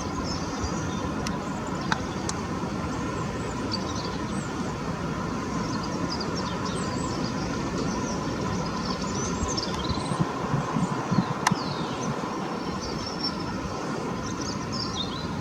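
Small birds chirping in short, high calls scattered through, over a steady low background rumble. Two or three brief faint clicks.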